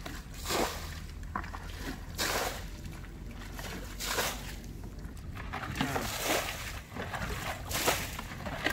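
Muddy pond water being bailed with plastic buckets and thrown out onto the mud, each throw a slosh and splash, coming every second or two.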